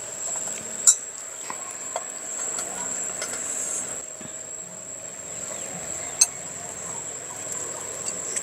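Metal spoons clinking and scraping against ceramic plates and bowls while rice is mixed by hand, with two sharp clinks about a second in and about six seconds in. A steady high-pitched whine runs underneath.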